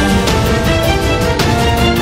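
News-channel intro theme music: held chords over a steady, fast beat.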